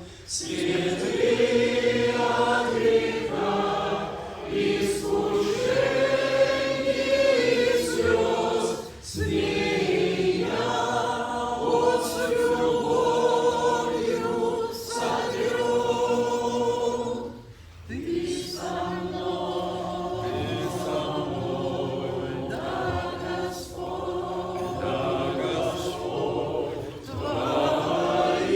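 A choir singing a slow Russian Christian hymn in long phrases, with brief breaks about nine and eighteen seconds in.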